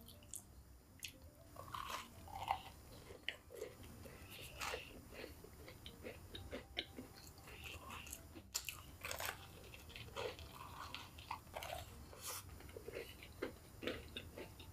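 Close-up crunching and chewing of crispy breaded fried chicken: many irregular crackly bites and chews with wet mouth sounds in between.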